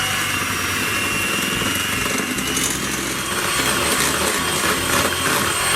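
Electric mixer running steadily on low speed, beating chocolate cake batter. Its motor gives a steady noise with a thin high whine that fades out about two seconds in.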